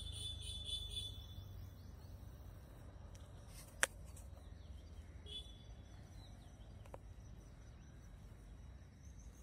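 Outdoor ambience of birds calling over a low rumble, with a rapidly repeated high chirping call in the first second and a shorter chirp about five seconds in. A single sharp click about four seconds in is the loudest sound, with a fainter click near seven seconds.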